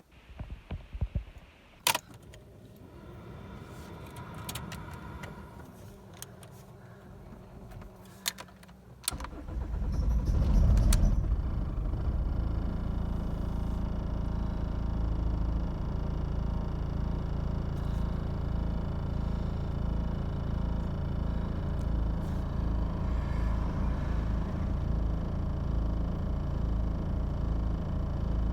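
Keys jangle and switches click as the ignition is turned on. About nine seconds in, the BMW E46 320d's 2.0-litre four-cylinder diesel starts, flares up in revs and settles into a rough idle with an uneven pulsing beat. The slow start and rough idle persist despite new injectors, a new Bosch VP44 injection pump, glow plugs and filters.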